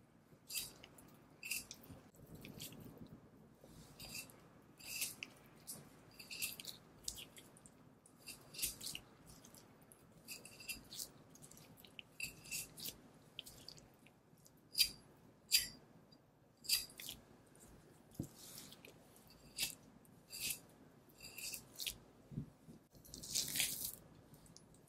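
Knife blade slicing fat and sinew off a Wagyu beef round (knuckle), as short crisp cutting strokes about one a second, with one longer stroke near the end.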